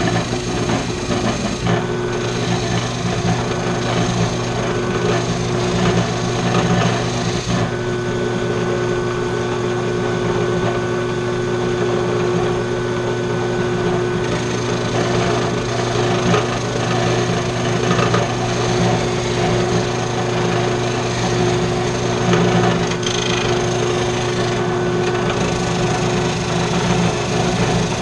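Ryobi benchtop drill press running steadily with a sanding drum in the chuck, wood pressed against the spinning drum: a constant motor hum under a rough, rasping sanding noise that varies slightly as the workpiece is moved.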